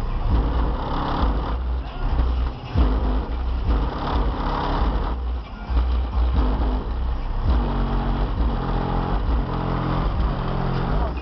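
Loud, bass-heavy music from the trunk-mounted Pioneer subwoofers of a Buick Regal coupe, heard from outside the car. Deep bass notes pound and change every half second or so.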